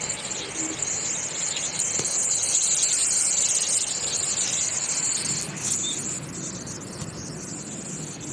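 Swollen river in flood rushing past bridge piers: a steady, hissing rush of turbulent water, louder in the first half and easing after about six seconds.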